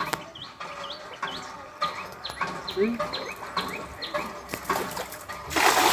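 A small bird chirping over and over, short high notes that hook upward, about two or three a second. Near the end a loud burst of rushing noise.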